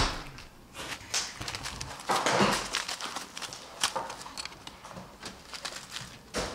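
Newspaper bedding rustling and crinkling as a young eastern gray squirrel scrambles about its cage, with irregular clicks and taps, loudest about two seconds in.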